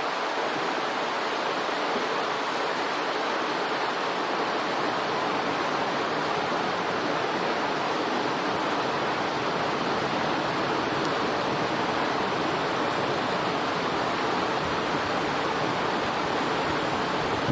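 Steady rush of flowing river water, an even noise that does not change.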